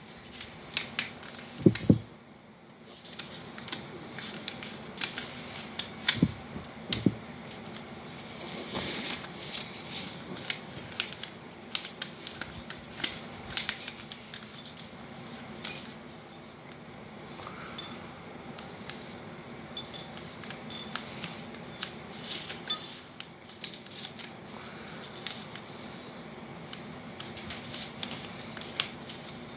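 Sheet of paper being folded and creased by hand on a hard floor: irregular rustling and crinkling, with scattered sharp taps and clicks, the loudest about two seconds in and near sixteen seconds.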